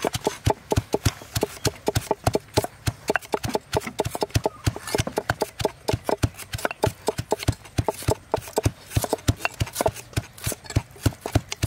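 Pestle pounding sliced lemongrass in a stone mortar: a steady run of dull knocks, about three to four strikes a second.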